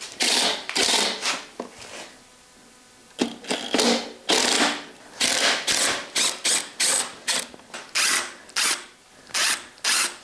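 Cordless drill/driver with a hex bit running in short bursts as it backs out the stock rear fender's mounting bolts, with a pause of about a second and a half about two seconds in and quicker, briefer bursts after.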